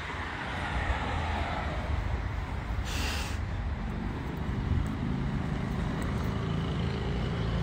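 Steady outdoor street noise with a low rumble, and a short hiss about three seconds in.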